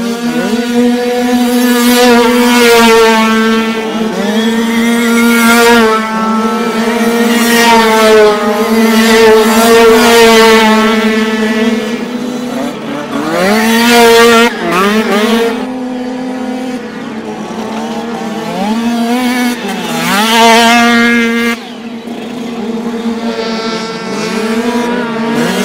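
Several 49cc two-stroke prototype dirt bikes racing past one after another, engines revving hard, their pitch climbing and dropping with throttle and gear changes. Loud passes come every few seconds, with quieter stretches of more distant engines between.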